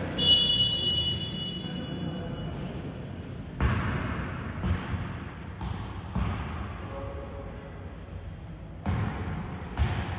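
A referee's whistle blows one long blast of a little over two seconds, several close high pitches sounding together. A basketball then thuds on the court floor a handful of times at uneven intervals.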